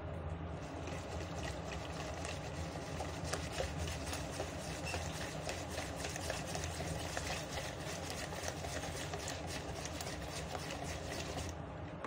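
Wire whisk beating a thin, frothy cake batter in a plastic bowl: quick, continuous wet clicking and sloshing strokes that stop shortly before the end. A steady low hum lies underneath.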